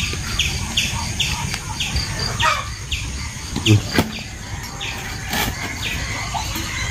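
A bird calling over and over with short falling notes, two or three a second, while a husked coconut set on stones is struck with a long-handled chopper to split it open for copra: one sharp knock about four seconds in and a fainter one over a second later.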